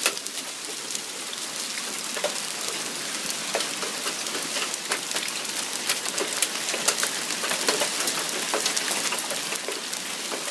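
Hail and rain coming down hard: a dense steady hiss dotted with many sharp ticks of hailstones striking.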